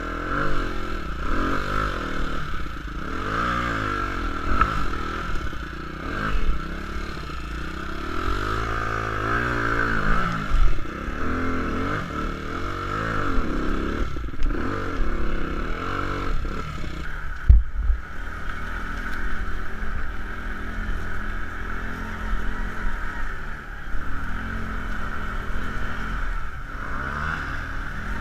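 Kawasaki ATV engine being ridden off-road, its revs rising and falling again and again, with clattering and scraping over the terrain and a sharp knock about seventeen seconds in.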